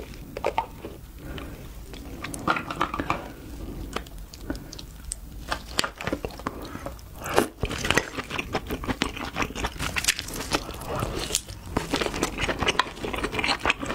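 Close-up eating sounds of cooked king crab: wet chewing of the meat mixed with many short crackling clicks from the shell being broken and the meat pulled out. The clicks come thickest in the second half.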